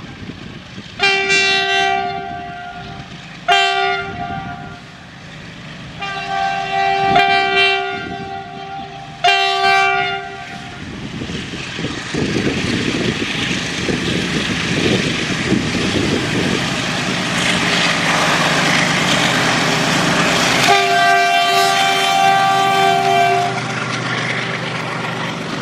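GE WDG4G diesel locomotive sounding its multi-tone air horn in a series of short and long blasts as it approaches. It then passes close by with its engine running and wheels rumbling, and gives one more long horn blast. The double-stack container wagons then roll by with a steady rumble.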